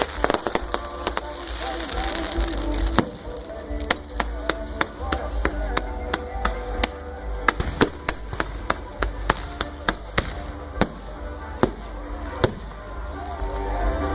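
Fireworks going off: a rapid, irregular string of sharp cracks and bangs, over music.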